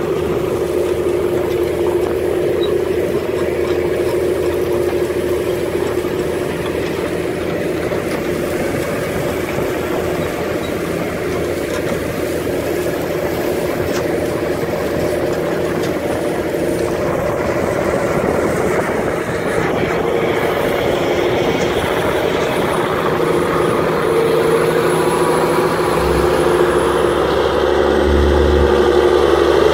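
Diesel engine of a Case IH Steiger 450 HD tractor running steadily under heavy load while it pulls a disc ripper through soil. The sound grows a little louder near the end.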